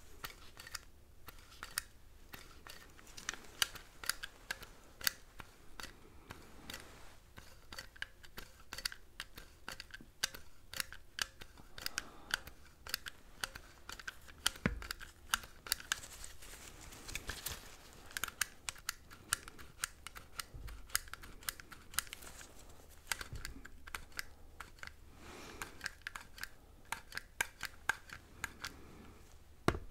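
Quiet, close-miked ASMR tapping and clicking: many quick, irregular light taps and clicks, with soft rustling now and then.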